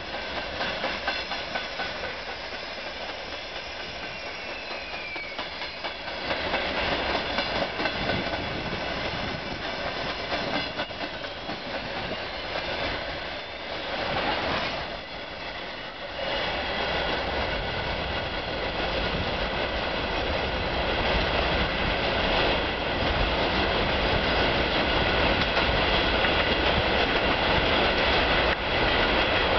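Freight train of covered hopper wagons rolling past: a steady rolling rumble of wagon wheels with clickety-clack over the rail joints. It grows louder from about halfway through.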